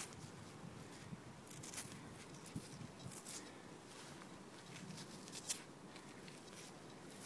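Faint scratchy rustles of gloved fingers rubbing soil off a small dug-up metal cap badge held in the palm, in a few short bouts over a quiet hiss.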